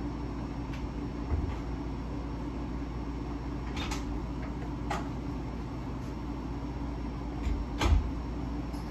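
Steady low hum of a room with a ceiling fan running, with a few light clicks and knocks scattered through. Near the end come a couple of heavier thumps, footsteps as someone walks into the room.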